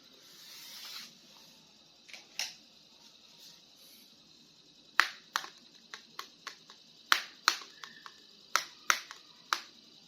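Plastic toy figures and packaging being handled: a brief rustle, then a series of sharp clicks and taps, most of them in the second half.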